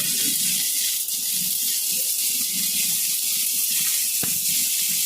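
Electric arc welding on a practice plate in the flat (1G) position: a steady hiss from the arc, with a sharp click about four seconds in.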